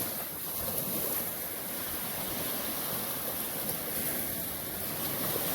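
Steady wash of ocean surf, with wind noise on the microphone.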